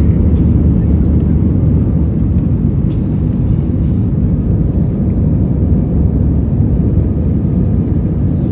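Airbus A320 jet engines and airflow heard from inside the cabin during the climb just after takeoff: a loud, steady, low rumble.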